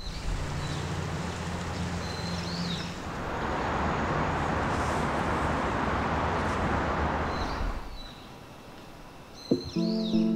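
City traffic ambience: a steady low rumble that swells in the middle as a vehicle goes by, with short bird chirps now and then. Music comes in near the end.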